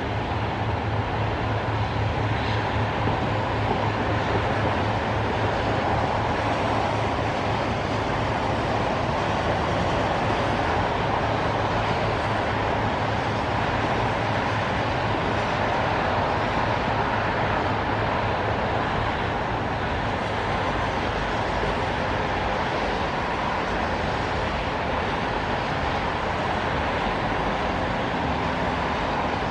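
Steady hiss of traffic on a rain-wet expressway, tyres on wet pavement mixed with the rain, with a low drone in the first third that fades.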